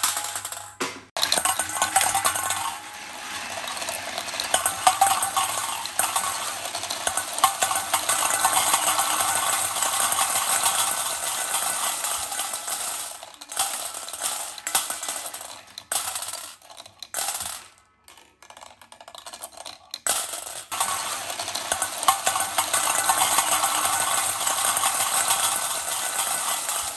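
Dozens of glass marbles clattering and rolling against each other in a stainless steel bowl, a dense continuous rattle. Midway it breaks into short separate spurts for several seconds, then picks up again.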